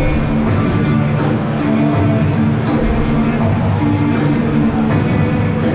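Loud music with a steady beat, played over a football stadium's public address system.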